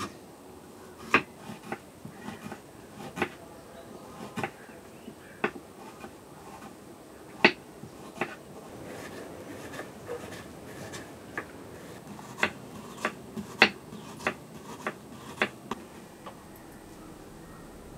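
Kitchen knife slicing red onions on a wooden chopping board: irregular sharp knocks as the blade goes through the onion and strikes the board, stopping about two seconds before the end.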